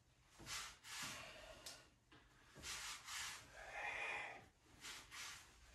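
Faint breathing by a man, a series of short soft breaths in and out, some coming in pairs.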